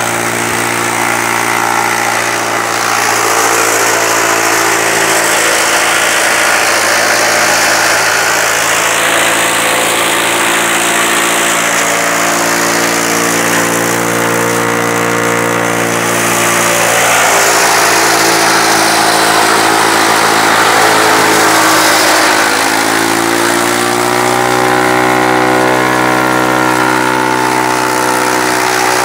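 Tractor engine running steadily while driving a silage chaff cutter, with the cutter's high whirring and hiss as green fodder is fed in and chopped. The engine speed shifts a couple of times, rising again near the end.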